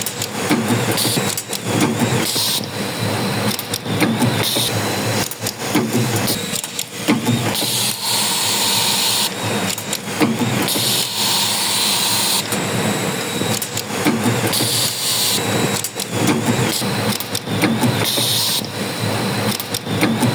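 Automatic nut-feeding and welding machine running, with a continuous clatter of parts and knocks and repeated hissing spells of a second or two.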